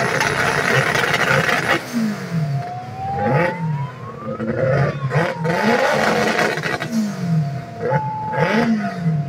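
Drag-racing engines being revved at the start line: loud, held high revs for the first couple of seconds, then the throttle blipped up and down about once a second.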